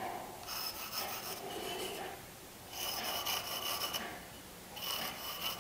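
Mechanical pencil scribbling across the end grain of a wooden board, hatching in the waste areas of a bridle joint: a dry scratching of quick strokes in three spells with short pauses between.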